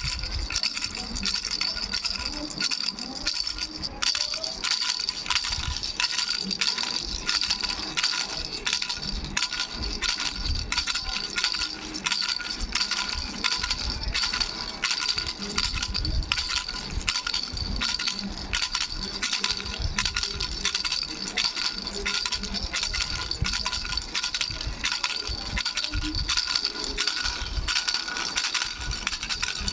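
Baby rattle with three bells shaken continuously: a dense, unbroken metallic jingling and clicking over steady bell ringing.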